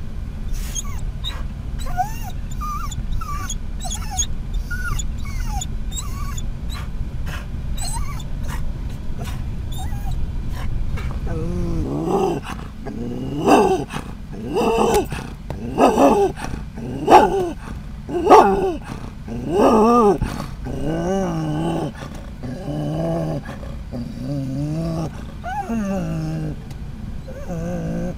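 Scottish Terrier inside a moving van, whining faintly over low road rumble at first. About halfway through it breaks into about six loud barks a little over a second apart, then carries on with lower, softer growly woofs about once a second.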